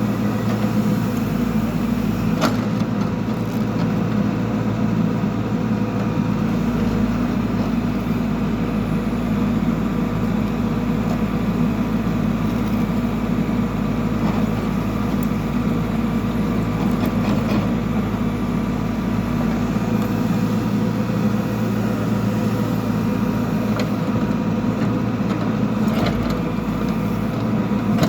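Backhoe loader's diesel engine running steadily, with a single sharp click about two seconds in.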